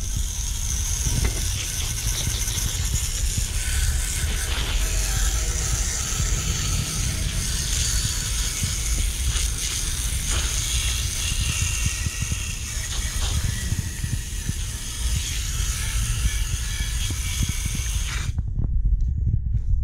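Garden hose spray nozzle shooting a jet of water onto a bicycle frame and the grass beneath it, a steady hiss over a low rumble, rinsing off paint stripper and loosened paint. The high hiss cuts out near the end.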